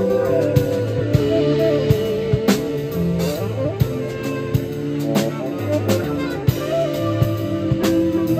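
Live instrumental psychedelic jazz from a small band: an electric guitar lead line bending and sliding in pitch over bass guitar and a drum kit keeping time.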